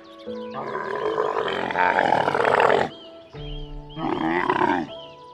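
Camel calling twice: a long rough call of about two and a half seconds, then after a short pause a shorter one with wavering pitch. Background music with held notes plays underneath.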